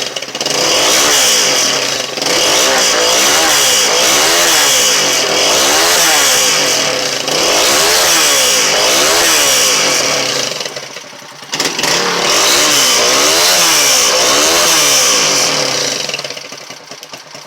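Super Gato motorcycle engine being revved over and over, its pitch rising and falling about once a second. It drops back briefly about two-thirds of the way through, then the revving resumes and falls away to a quieter idle near the end.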